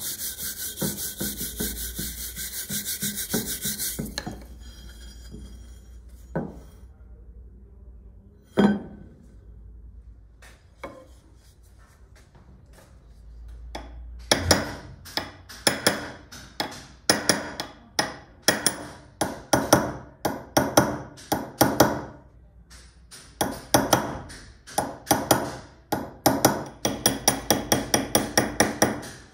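Hand-held abrasive tool scraping back and forth on the steel of a vintage Wilton C-clamp. Fast dense strokes for the first few seconds, then a quieter pause broken by a single knock, then from about halfway a steady run of strokes at roughly two a second that speeds up near the end.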